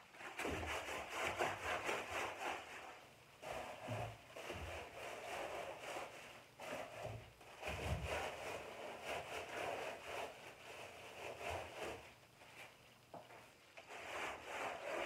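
Paint being scrubbed onto a large stretched canvas in rapid repeated strokes, coming in several spells of a few seconds with short pauses between them.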